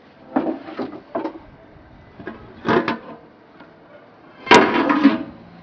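Aluminium lid handled and lifted off a large aluminium cooking pot of rice: metal clanks and scrapes in three short clusters, the loudest near the end, opening with a sharp click.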